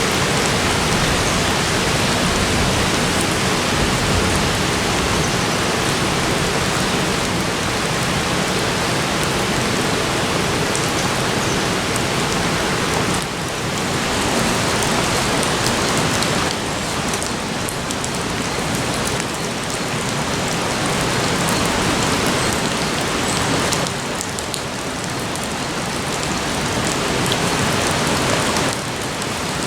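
Heavy rain falling steadily, a dense, even hiss of drops, dropping abruptly in level a few times.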